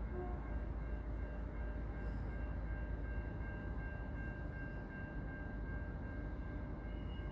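Low, steady rumble of a distant train approaching along the line, with a thin high tone that pulses faintly throughout.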